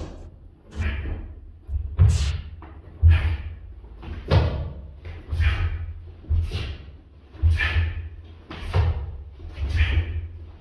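Sharp slaps and thuds about once a second from repeated kicks and footwork in a martial arts drill, each with a short fading tail.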